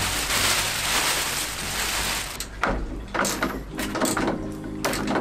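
Clear plastic wrapping rustling and crinkling as it is pulled off a new tool roll cabinet: a continuous rustle for about two seconds, then several short crackles, with faint background music.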